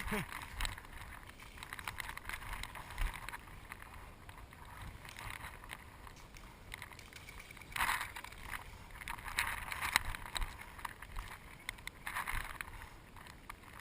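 Irregular rustling and scuffing with wind buffeting the microphone, in swells that peak about eight, nine and a half and twelve seconds in, with a few faint clicks.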